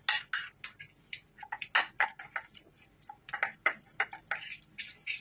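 A metal spoon stirring a thick paste in a ceramic plate, clinking and scraping against the plate in quick, irregular strokes.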